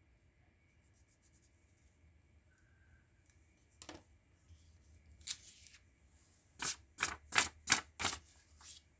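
Drawing tools being handled on a desk: a single knock about four seconds in, a brief rustle, then a quick run of five sharp clicks, about three a second, with one more click near the end.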